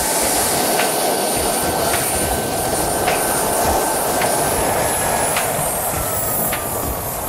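JetCat PHT-3 kerosene turbine engine of an RC turbine helicopter running, its rotor noise and a high whine over it; the whine falls in pitch over the last two seconds.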